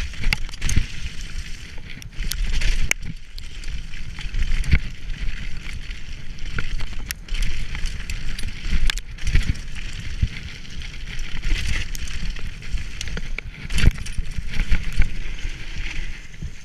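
Downhill mountain bike descending a rough dirt trail at speed: tyres rumbling over the ground, with frequent sharp knocks and rattles from the bike as it hits bumps.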